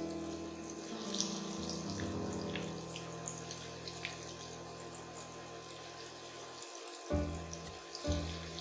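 Hot oil sizzling and crackling steadily as breadcrumb-coated potato cheese balls deep-fry, under background music with held low notes.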